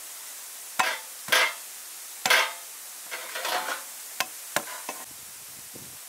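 A garlic bulb being broken into cloves by hand on a wooden board. Three sharp knocks come in the first few seconds, then a burst of dry crackling from the papery skins and a few lighter clicks.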